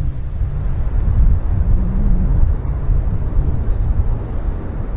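Low, steady rumble of a jet aircraft's engines on the runway, heard from afar and mixed with wind buffeting the microphone.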